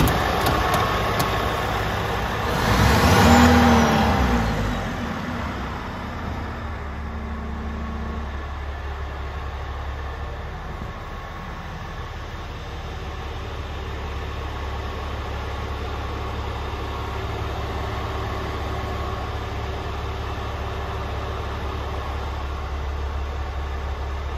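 Scania R440's six-cylinder diesel engine idling. About three seconds in there is a brief louder swell that rises and falls in pitch, then a steady low hum.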